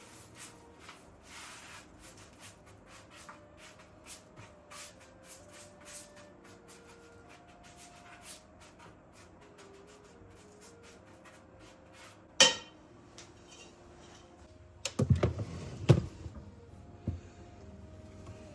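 Kitchen handling sounds: light clicks and rubbing, one sharp knock about two-thirds of the way in, then a quick flurry of knocks and clatter near the end.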